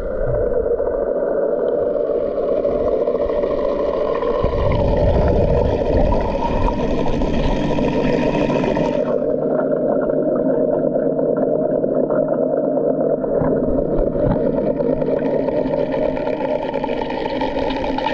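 Dolphin Nautilus CC Plus robotic pool cleaner running underwater: a steady motor and pump hum with rushing water. A higher hiss drops away about nine seconds in and comes back near fourteen seconds.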